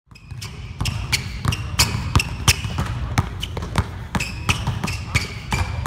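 Several basketballs being dribbled on a hardwood gym floor, their bounces overlapping irregularly at about three to four a second and echoing in the hall. The sound fades in over the first second.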